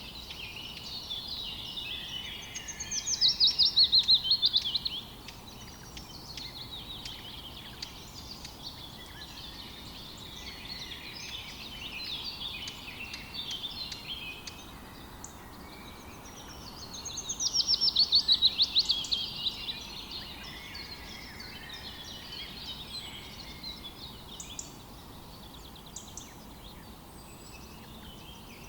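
Several small birds chirping and singing together. Two loud, fast trilled songs stand out, one about three seconds in and one about seventeen seconds in, over steady lighter chirping and a faint hiss.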